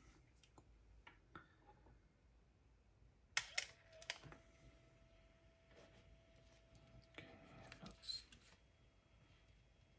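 Near silence broken by a few handling clicks and knocks of a screwdriver being picked up and set against a cassette walkman, the loudest two about three and a half and four seconds in. A faint steady tone sounds through the middle.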